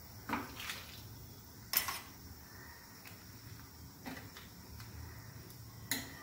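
Steel ladle and mixer-grinder jar clinking against a stainless-steel pressure cooker as ground coconut paste is scraped into the curry. There are several short, sharp metal clinks, the loudest about two seconds in.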